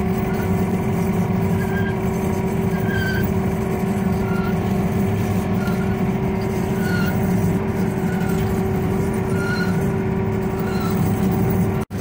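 Skid loader engine running steadily as the machine drives up a gravel driveway, heard from inside the cab, with an even drone and a steady hum.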